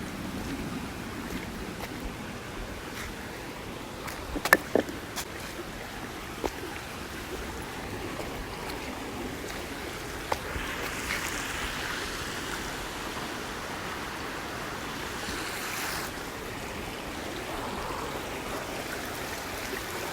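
Stream water running steadily, with a few sharp clicks about four and a half seconds in and a couple more later.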